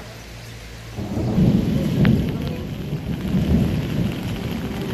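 Heavy rain pouring onto a flooded street, with a loud low rumble. The rumble starts suddenly about a second in, after a quieter steady hum.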